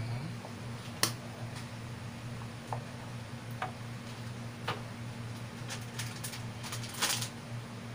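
Wooden spoon stirring thick squash soup in a metal pot, with a few sharp clicks and knocks of utensils against the pot, the loudest about a second in and a short cluster near the end. A steady low hum underlies it.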